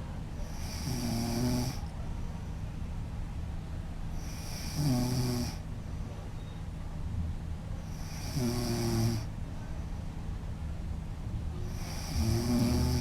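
A woman snoring, four snores in slow, even rhythm, one about every three and a half to four seconds, each a low rattling tone with a breathy hiss.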